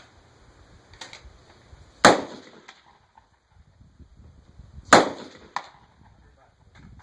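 Two loud rifle shots about three seconds apart, each with a short echo off the range, with a few fainter shots in between.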